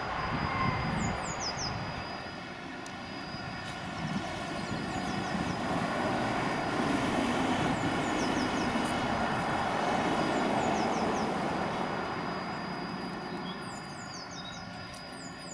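A steady, thin, high-pitched tone holds throughout, under the sound of a passing aircraft's engines that swells to a peak around the middle and fades. A few short bird chirps come and go.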